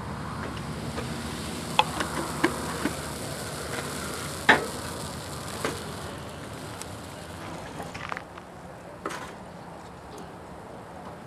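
Crepe batter sizzling on a hot griddle over a small wood-fired folding stove, the hiss fading in the second half as the thin crepe sets. A few sharp clicks and knocks come over it, the loudest a little before halfway.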